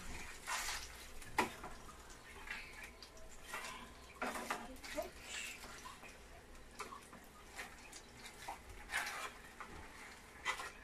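Soft, irregular rustles, scrapes and light knocks of baked mackerel being turned by hand in a paper-lined metal baking pan, the pan shifting on the stovetop.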